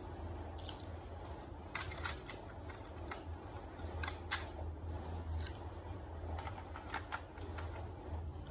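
Hard plastic toy doctor tools clicking and tapping as they are set and pressed into the molded slots of a plastic toy case. The sharp clicks come irregularly, in small bunches about two, four and seven seconds in, over a steady low hum.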